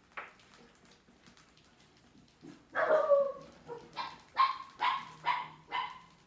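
A dog barking: one longer bark about three seconds in, then five short barks in quick succession.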